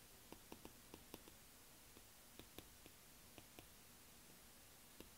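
Near silence broken by faint, irregular ticks of a stylus tip tapping and sliding on a tablet's glass screen during handwriting, most of them in the first few seconds.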